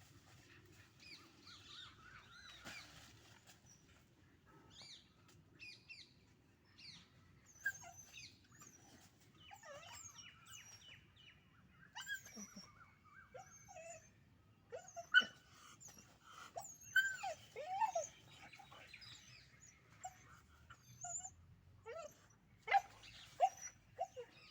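Puppies play-fighting, giving many short high-pitched yelps, squeals and whimpers, scattered at first and coming louder and more often in the second half.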